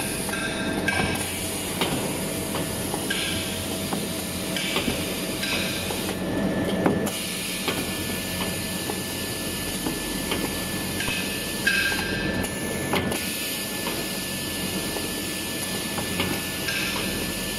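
Industrial band saw roll-paper cutting machine running and cutting jumbo tissue rolls: steady mechanical noise with a faint steady whine, scattered knocks and a few short hisses.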